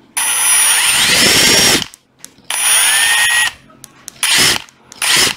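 Hitachi WH18DDL2 18 V cordless impact driver running free with no load, triggered four times. First comes a long run whose whine rises and then holds steady, then a shorter run at a lower pitch, then two short blips of the trigger.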